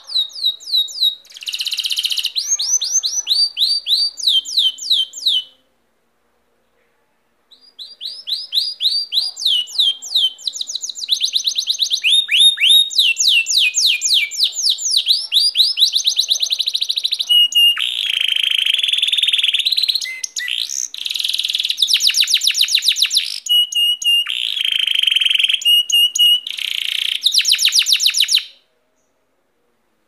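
Domestic canary singing close by: a long song of fast trilled phrases, rapid repeated high notes and sweeping rolls. It breaks off about five seconds in, starts again about two seconds later and stops shortly before the end.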